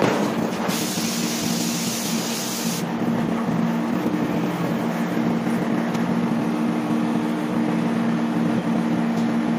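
Heavy forging-press and manipulator machinery running with a steady low hum. A loud hiss starts shortly after the beginning and lasts about two seconds.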